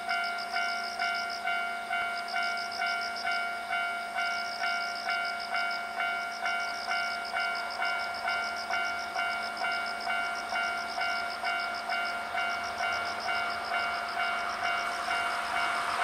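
Japanese level-crossing warning bell ringing steadily at about two strikes a second. Near the end, the running noise of an approaching Hankyu 8300 series electric train grows louder.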